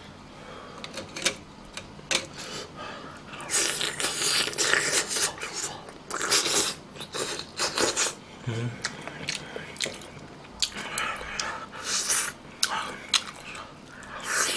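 Close-miked eating sounds: a man gnawing and sucking meat off pork spine bones from gamjatang, with many quick wet clicks and smacks.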